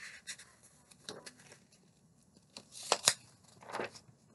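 Paper pages of a thin picture book rustling as the page is turned, with a few short crisp snaps; the loudest pair comes about three seconds in.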